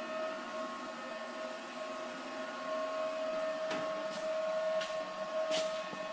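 A steady machine whine, one constant tone with a fainter higher one, with a few short light clicks in the second half.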